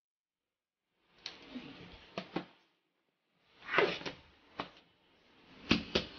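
Metal cake tin being turned out onto a plastic plate: scraping and a few clicks as the edge is loosened, a loud clatter as tin and plate are flipped over, then rapid taps, about four a second, on the upturned tin's base to release the cake.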